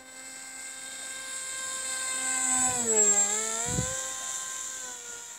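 Brushless outrunner motor (2600KV) of an electric pusher foam RC plane whining through its 6x4 propeller as the plane flies past: the whine grows louder to a peak about three seconds in, its pitch dipping and coming back up, then fades. A brief low thump just after the peak.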